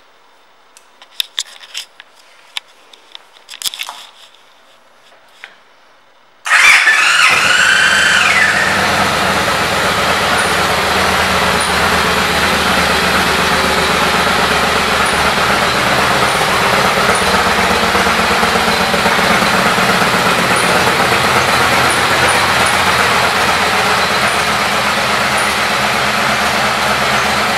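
A few light clicks, then the 2013 Victory High Ball's V-twin engine is cranked by its starter, with a brief whine, and catches about six and a half seconds in. It then settles into a steady idle.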